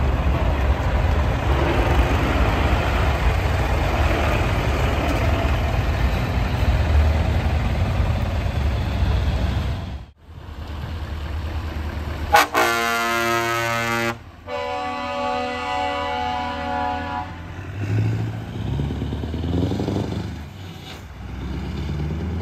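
Heavy diesel trucks idling with a low rumble; about halfway through, a Scania truck's air horn sounds two long blasts, the second on a different pitch, then the engine rumble rises and falls as a truck drives off.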